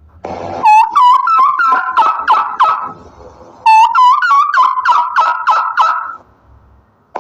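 Turkey gobbling twice, each gobble a fast rattling run of loud calls lasting about two and a half seconds, the second starting about a second after the first ends.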